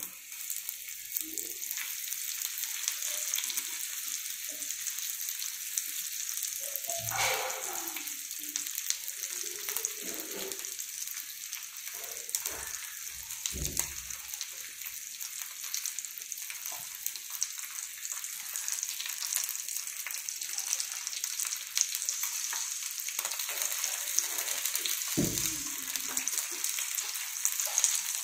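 Rava-coated small fish shallow-frying in hot oil on a flat pan, a steady high sizzle that starts as the first piece goes down and keeps up as more are added. A few soft knocks sound through it.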